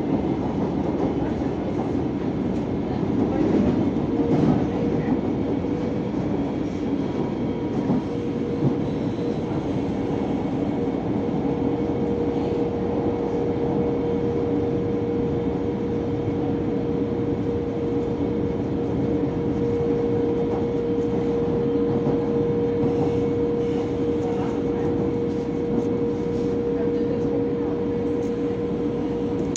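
Electric commuter train of São Paulo's CPTM Line 13 running between stations, heard from inside a carriage: a continuous rumble of wheels on the rails, with a steady mid-pitched hum joining in about four seconds in.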